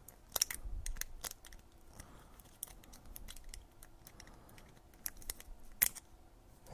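A small screwdriver scraping and clicking in a screw hole of a 3D-printed plastic part, cleaning out the hole: scattered sharp clicks, most of them in the first second and one more near the end, with light scratching in between.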